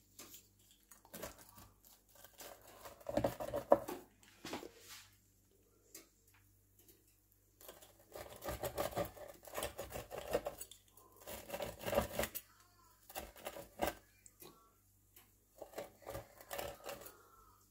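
Pizza wheel cutter rolling through a baked pizza's crust and scraping on a wooden cutting board, in about five separate strokes a second or two long.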